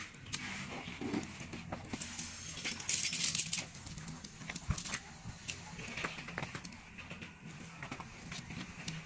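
Tent canvas rustling and metal tent poles clicking and knocking as the tent is pitched. There is a louder rustle of fabric about three seconds in and a sharp knock shortly before five seconds.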